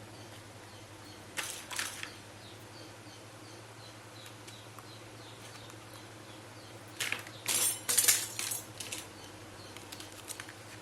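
Small plastic toy kitchen pieces being handled: two sharp clicks about a second and a half in, then a cluster of louder clicks and rattles around seven to nine seconds in, over a faint steady hum.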